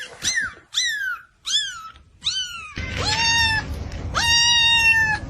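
Kitten meowing: four short calls that fall in pitch, then two longer calls held at a steady pitch.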